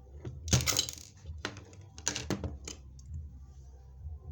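Rivet machine and rivet beads clicking and clattering in short bursts as a bead is set on a scarf, loudest about half a second in and again about two seconds in.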